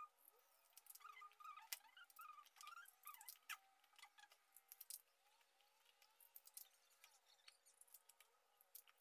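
Faint clicks and light knocks of young bamboo shoots being handled in a plastic basin and their husks peeled by hand, over a faint steady hum. Short faint chirps come and go in the first few seconds.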